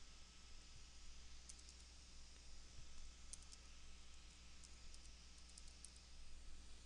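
Faint typing on a computer keyboard: a few short runs of light key clicks over a steady low hum.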